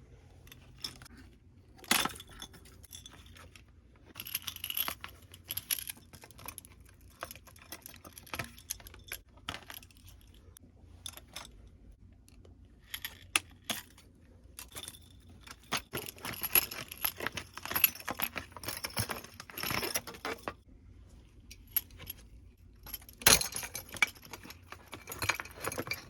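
Irregular bursts of crisp rustling and light clinking, with a few sharp clicks, loudest about two seconds in and again near the end.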